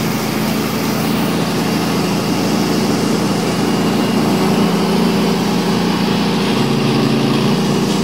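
Argo amphibious ATV's engine running steadily under way, heard from on board the moving vehicle.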